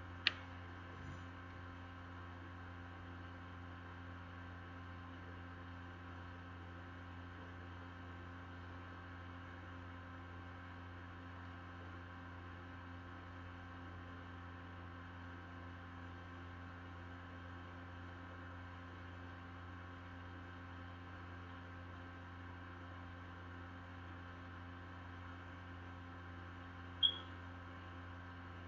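Steady low electrical hum with light hiss, unchanging throughout. Two brief sharp clicks break it, one just after the start and one near the end.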